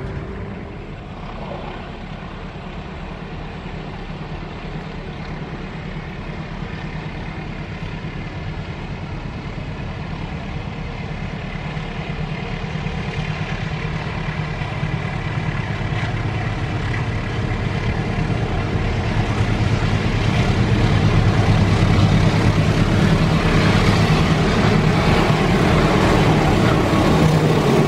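Double-traction diesel-electric locomotives approaching: a low engine drone that grows steadily louder, joined in the last several seconds by rising wheel-and-rail noise as the train draws close.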